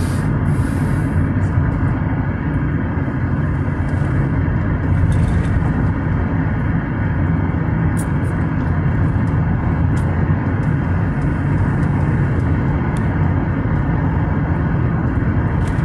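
Steady engine and tyre noise of a car driving along an asphalt road, heard from inside the cabin, with a few faint ticks.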